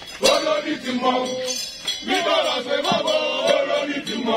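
Men's voices chanting and singing in a call-like, sing-song way, with a few sharp clinks among them.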